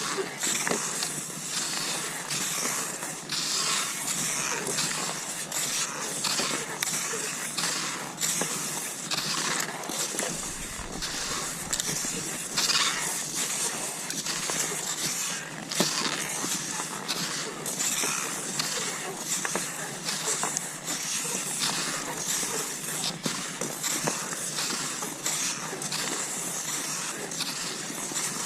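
Cross-country skis swishing over snow in a steady, repeating stride rhythm, with a few short clicks.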